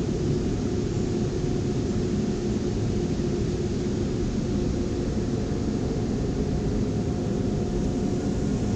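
Strong, gusty storm wind rumbling on the microphone, with a faint steady hum underneath.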